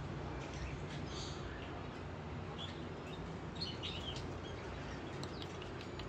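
Blue-crowned hanging parrot giving a few short, high chirps scattered through, over a steady low hum.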